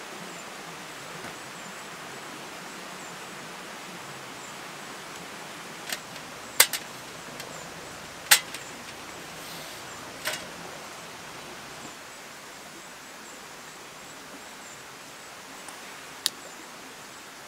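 Steady rushing of a mountain stream. Over it come a handful of sharp clicks and knocks from about a third of the way in to past halfway, the two loudest close together, as a folding camp chair and table are handled, and one more sharp click near the end.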